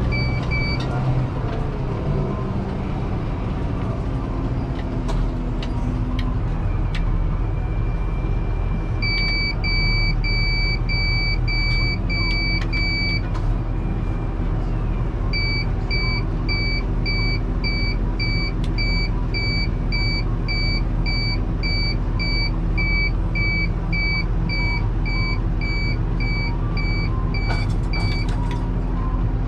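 Deutz-Fahr 6185 TTV tractor's six-cylinder diesel running steadily under load, heard inside the cab. Over it comes a high electronic beep, once as a held tone and then in two long runs of about two beeps a second.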